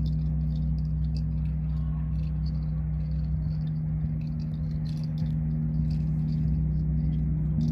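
A steady low drone tone held without a break, with faint rattling clicks scattered over it.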